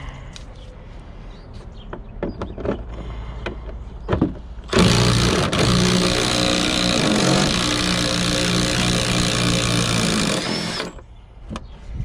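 Milwaukee cordless ratchet running steadily for about six seconds, starting about five seconds in and stopping suddenly. Before it, a few knocks and clicks from plastic panels being handled.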